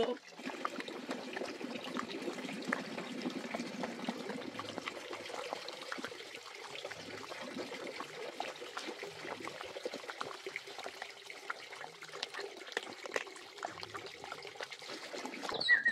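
Two dogs eating wet rice from a plastic basin: continuous wet lapping and chewing, made up of many small smacks and clicks.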